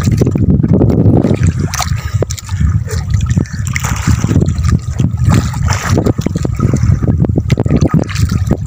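Water splashing and sloshing, with a steady low rumble and many irregular knocks and splats.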